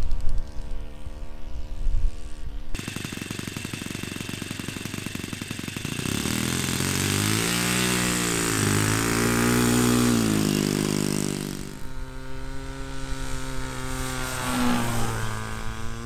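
Small RC model-airplane engine running in a few short clips. From about six seconds in its pitch swings up and down as the throttle is worked; this is the Saito FA-56 four-stroke of the yellow high-wing model, run up on the ground. After a cut near the end, the engine drones steadily in flight with a brief rise in pitch, and gusty wind noise runs between the engine passages.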